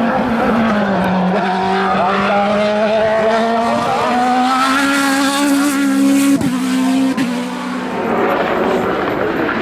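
Hillclimb race car engine at high revs: the pitch drops in the first second, then climbs slowly as the car accelerates. Two quick breaks around six and seven seconds in, where it shifts gear, before the sound fades as the car goes away.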